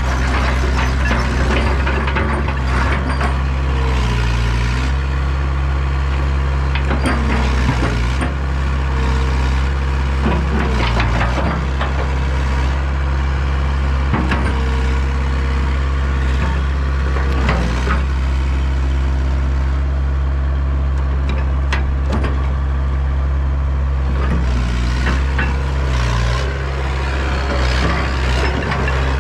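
Hitachi EX100 excavator's diesel engine running steadily while the machine works, its hydraulics changing pitch as the controls are moved, with scattered clanks, knocks and rattles.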